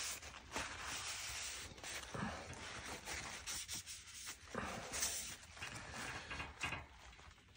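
Faint rustling of a crumpled paper towel wiping a freshly sharpened knife blade, with a few short soft rubs.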